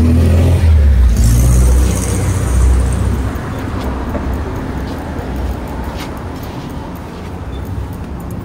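Street traffic: a car passes close by in the first few seconds with a loud low rumble, which then fades to a steady traffic hum with a couple of faint clicks.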